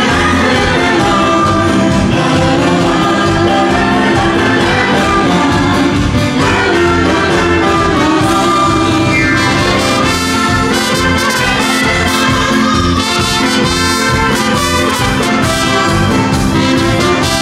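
Live dance band playing an up-tempo number: trumpets and saxophone over a drum kit with cymbals. A woman's voice sings along in the first part.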